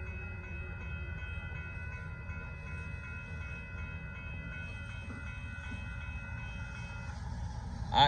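Amtrak Texas Eagle passenger train rumbling on past a grade crossing, with the crossing's warning bell ringing steadily until it cuts off about seven seconds in.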